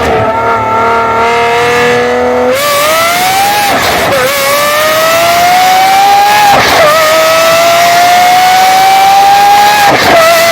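Lamborghini Aventador SVJ's naturally aspirated V12 exhaust, holding a steady note, then accelerating hard through the gears: the pitch climbs and drops sharply at each of three upshifts.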